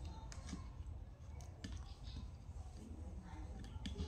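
Faint scattered clicks and light taps of fruit being handled on a ceramic plate, over a low steady hum.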